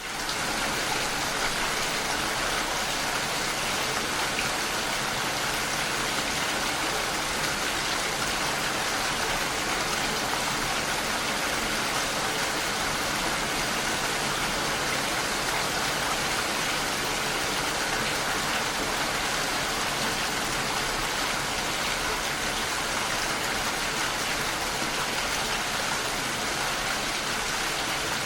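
Steady heavy rain, a dense even hiss that comes in suddenly at the start and holds without a break.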